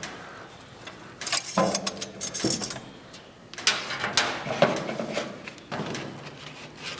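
Irregular clicks, knocks and scraping of hand work in a car's engine bay, coming in several short clusters with quieter gaps between.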